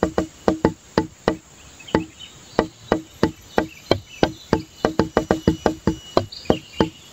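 Fast, even wood-block-like clicking beat, about five clicks a second with a brief thinning about a second and a half in, typical of a percussive background music loop. A faint high insect-like trill runs underneath.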